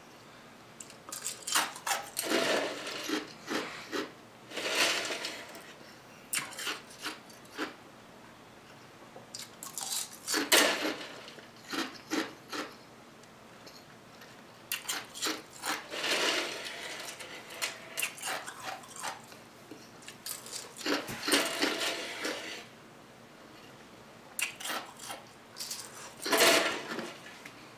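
Eating sounds: a utensil clinking and scraping against a dish, with chewing, in short clusters every few seconds.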